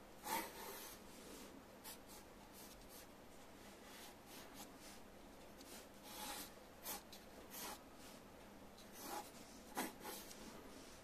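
Wooden graphite pencil scratching across paper in short sketching strokes, a few at a time with quiet pauses between.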